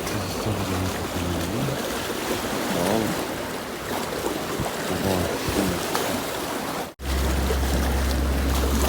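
Sea waves and wind buffeting the microphone at the shoreline. After an abrupt cut near the end, a steady low rumble.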